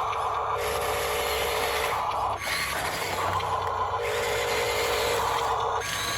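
Small electric gear motor of a toy construction vehicle whirring in runs of a second or two, stopping or shifting pitch between them as it is driven.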